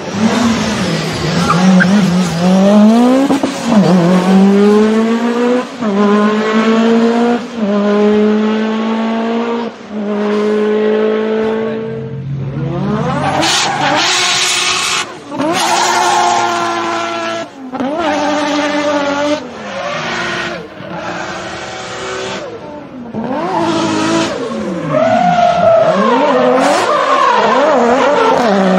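A racing car engine revving. For about the first twelve seconds the pitch climbs, drops and climbs again several times, like shifting up through the gears. After that it revs up and down unevenly, with some high hiss.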